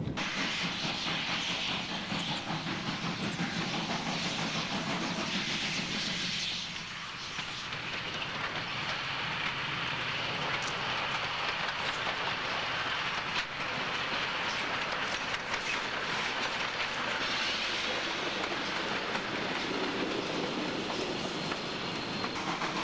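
Steam locomotive hauling a short passenger train past at speed, its steady running noise mixed with the clicking of wheels over rail joints as the coaches go by.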